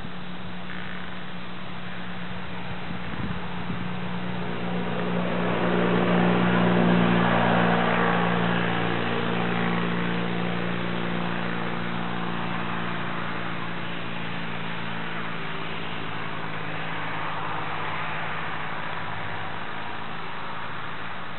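A motor engine passing at a distance, growing louder to a peak about seven seconds in and then slowly fading, over a steady low hum.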